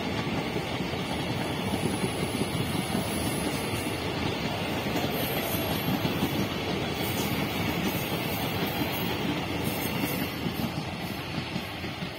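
Indian Railways ICF passenger coaches running past, a steady sound of wheels on the rails that fades near the end as the last coach goes by.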